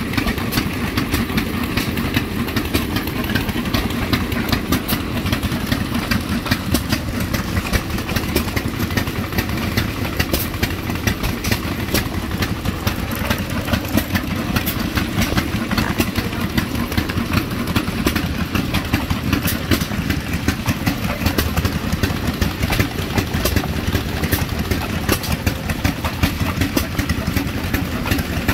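Antique stationary gas engines running at idle, a steady stream of exhaust pops and mechanical clatter.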